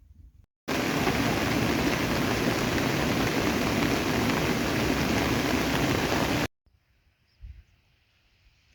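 Steady loud rushing of water, cutting in abruptly about a second in and stopping just as abruptly near the end.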